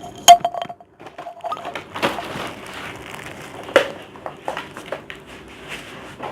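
Gift packaging being handled, rustling and crinkling, with scattered clicks and a sharp knock about a third of a second in.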